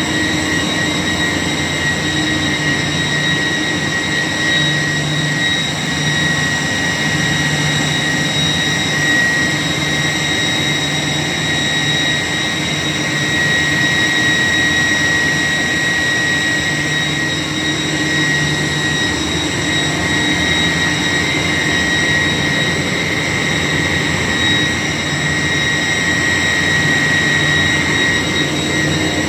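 York YK centrifugal chiller running steadily: a constant high-pitched compressor whine over a low hum, with no change in speed or pitch.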